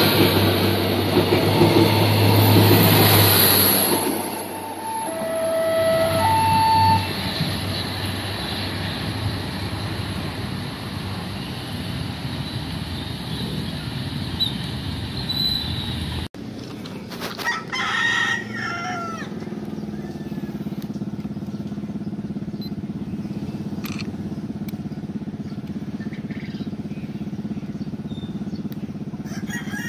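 Diesel multiple-unit commuter train passing close by, its engine's steady low drone and running rumble loud for the first few seconds, then fading into a steady wash. After a cut, a rooster crows twice, about two seconds after the cut and again at the very end, over steady background noise.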